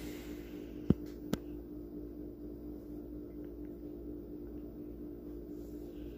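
A steady low electrical hum, broken by two sharp clicks about a second in, half a second apart.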